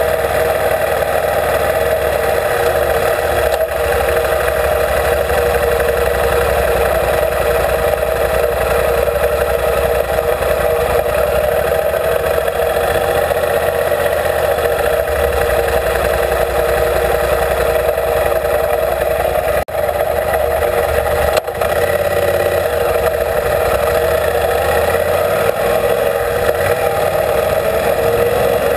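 Dual-sport motorcycle riding slowly with its engine running steadily, heard close up from the bike itself, engine and road noise mixed into a steady drone. There are two brief drops in level about twenty seconds in.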